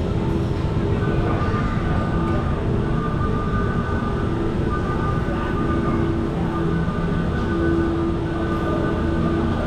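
Disney Skyliner gondola station machinery running: a steady mechanical rumble with a whine that comes and goes as the cabins are carried through the station on its tire conveyors.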